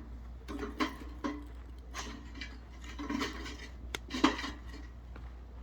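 Metal clinking and knocking as the Carrix Vulcan 26 wood stove is handled to add a log: several sharp clanks and rattles, the loudest about four seconds in.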